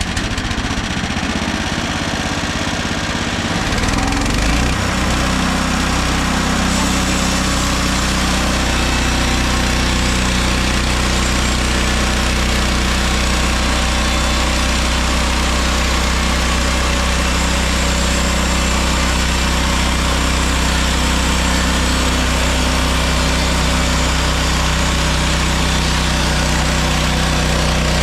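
Gas engine of a Mechmaxx SM32 portable bandsaw mill running just after starting; its speed comes up about four seconds in, then it runs steadily.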